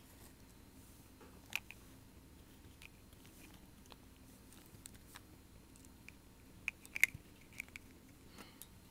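Faint, scattered small clicks and taps of plastic Littlest Pet Shop toy figures and accessories being handled, with the loudest click about seven seconds in.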